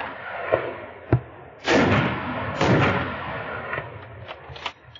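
Rifle shots at running wild boar: a sharp crack about a second in, then two loud shots about a second apart, each trailing off in a long echo, with fainter cracks near the end.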